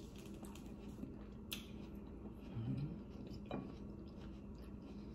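Quiet eating sounds: soft wet clicks of chewing an orange slice, with a short hummed "mm" about two and a half seconds in, over a steady low hum.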